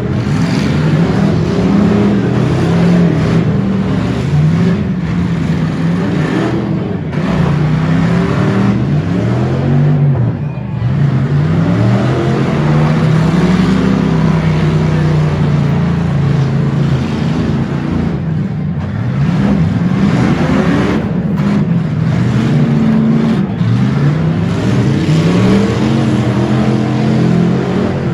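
Stock V8 engines of demolition derby cars revving hard, their pitch climbing and falling over and over as the cars accelerate and back up, several engines at once.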